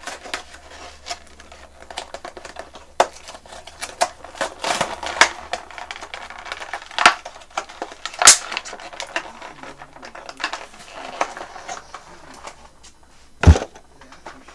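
Toy packaging being pried open by hand: the clear plastic blister and cardboard card crackle, click and snap in a quick irregular run, with a few sharper snaps. A heavier thump lands near the end.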